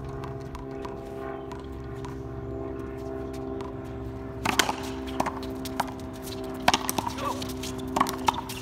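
Racquetball rally: sharp cracks of the ball off racquet strings and the concrete wall, coming in a quick series from about halfway in, over a steady low hum.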